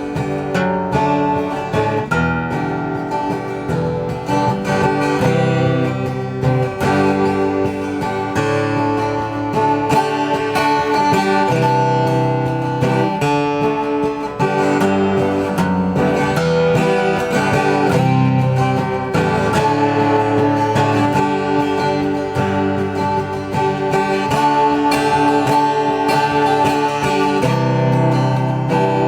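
Guild F-512E maple jumbo 12-string acoustic guitar strummed steadily in chords, in the key of G.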